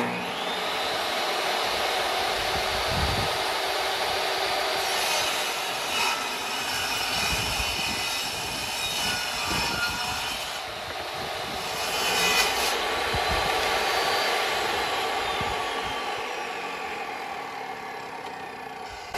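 Portable jobsite table saw running, ripping 2x10 lumber into 3/8-inch strips, with louder stretches as each piece is fed through the blade. Near the end it is switched off and winds down, its whine falling.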